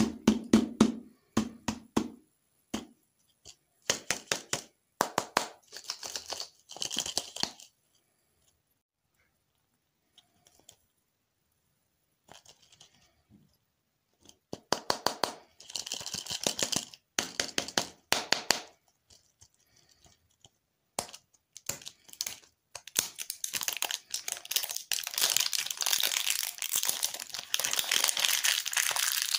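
Foil candy wrapper crinkling and tearing as a ball lollipop is unwrapped by hand, in short crackly bursts and then a long continuous stretch of crinkling over the last several seconds. A few soft thumps at the start.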